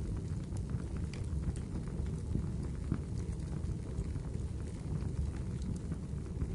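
Wood fire crackling in a fireplace: a steady low rumble of the flames with many small, irregular pops and snaps.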